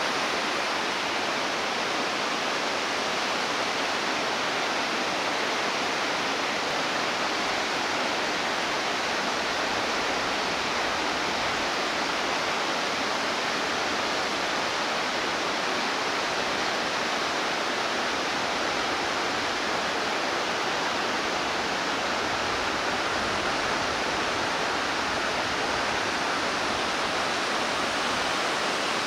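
Steady rushing of a swollen, fast-flowing river.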